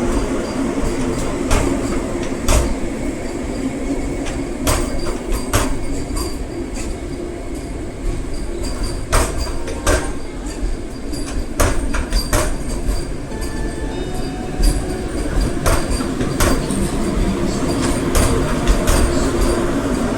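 Vande Bharat Express electric train running on the rails: a steady rumble with irregular sharp clicks and knocks from the wheels on the track.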